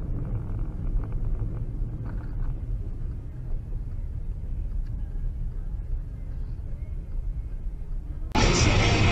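Low, steady rumble of a car driving on a snow-covered road, heard from inside the car. Near the end it cuts suddenly to a much louder, hissing rush.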